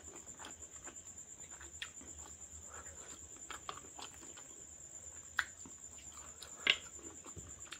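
Close-up eating sounds of a man eating rice by hand: soft wet chewing and lip smacks, with two sharper smacks in the second half.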